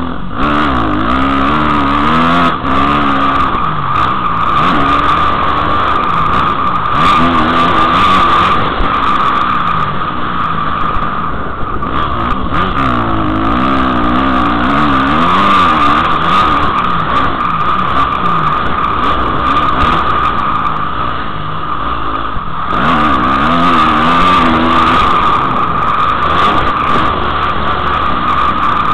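Dirt bike engine heard close up, revving up and falling back again and again as it rides the track, with a few short knocks through the ride.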